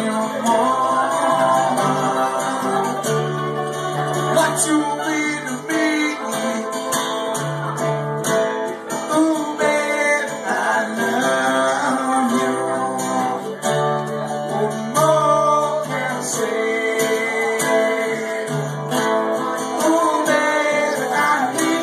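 Mandolin and strummed acoustic guitar playing a song together live.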